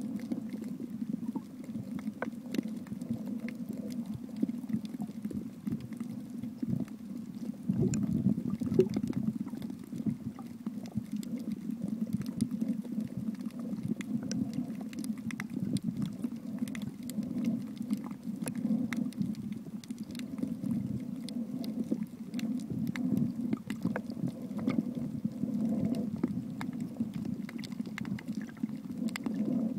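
Underwater ambience picked up by a submerged camera: a low, steady rumble of moving water with many faint scattered clicks and crackles.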